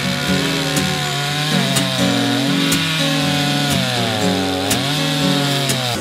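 Two-stroke Stihl chainsaw cutting through a reclaimed chestnut log, its engine pitch dipping and recovering as the chain bogs and frees in the wood.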